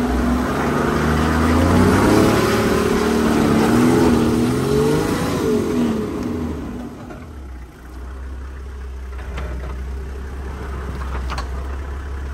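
Toyota Land Cruiser engine revving under load off-road, its pitch rising and falling, heard from inside the cabin. About seven seconds in it eases off to a lower, steady run.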